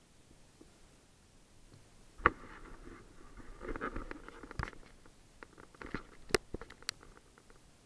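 Mountain bike riding over a rutted, muddy dirt track: tyres crunching on the dirt, with several sharp knocks and rattles from the bike, the loudest about two seconds in.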